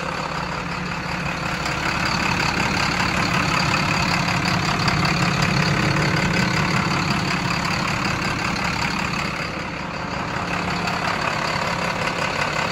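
A 2012 IC RE school bus's MaxxForce DT inline-six turbo diesel idling steadily.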